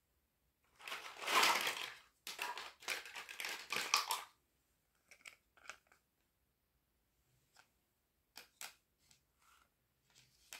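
Plastic wrapping crinkling and rustling for about three and a half seconds. Then come a few light clicks and taps of small plastic toy pieces being handled and set down.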